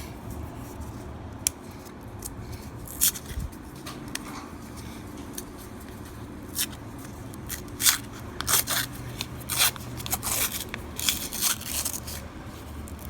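Half-dollar coins clicking and clinking against each other as a roll is opened and spread out, a few clicks early on and a dense run of clinks in the second half.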